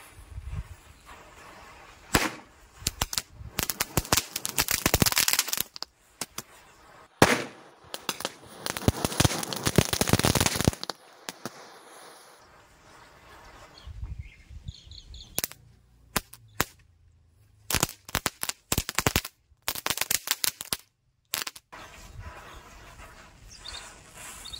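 Small Diwali firecrackers going off: two long runs of rapid crackling, then a string of separate sharp bangs near the end, with the hiss of lit matchsticks flaring in a chain between them.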